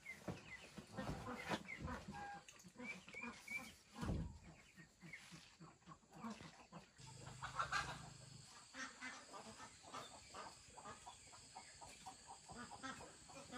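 Farm poultry calling on and off, in short calls.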